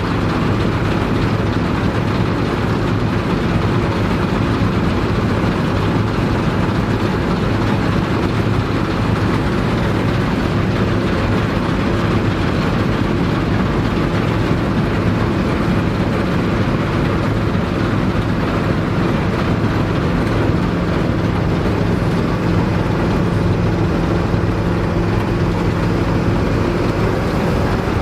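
Vintage Dronningborg D2600 combine harvester running steadily while harvesting barley: engine and threshing machinery going at a constant pitch and level, with a low hum and a rattling hiss over it.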